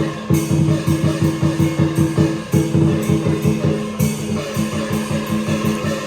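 Instrumental music with guitar, bass and drum kit playing a fast, steady beat.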